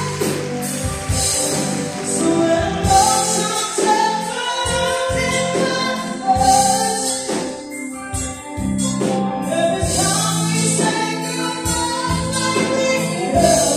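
Live band playing a song: a woman singing into a microphone over drums and electric guitar.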